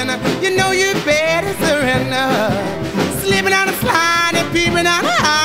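Background song: a singing voice over instrumental backing.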